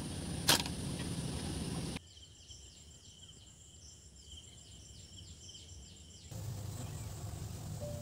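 A single sharp click, then a few seconds of quieter forest ambience with rapid repeated high chirping, then low outdoor background noise.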